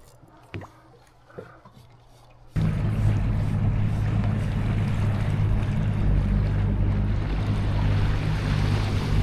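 A few light knocks, then, about two and a half seconds in, a boat engine suddenly running steadily and loudly with rushing water and wind noise.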